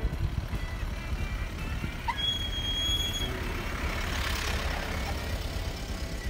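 Open-air ambience with a steady low rumble from wind on the microphone and distant traffic. About two seconds in there is one short, high whistled note lasting about a second, with a brief hiss soon after.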